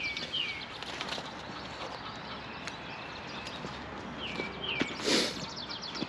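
Outdoor yard sounds with light footsteps on dirt and gravel, and a bird giving a short falling two-note call twice, near the start and again about four and a half seconds in. A brief loud rush of noise comes about five seconds in.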